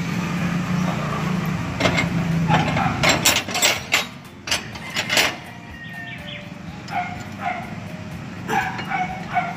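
A dog barking several times, short separate barks, over a low steady hum that fades out about two and a half seconds in.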